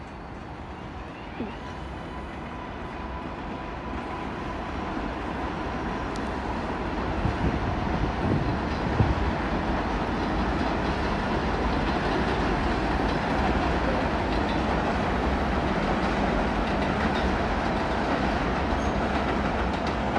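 A 7 subway train running on the elevated steel viaduct, its rumble and wheel clatter growing louder over the first eight seconds or so, then holding steady. There is a sharp clack about nine seconds in.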